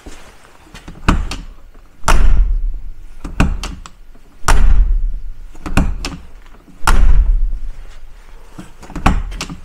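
A hand striking the outer skin of a UAZ-39094 Farmer door that is deadened with 2 mm bitumen mat and 25 mm foam: about nine dull thuds, the heaviest about two, four and a half and seven seconds in. The door sounds quiet, with no rattle of bare sheet metal: the insulation is working.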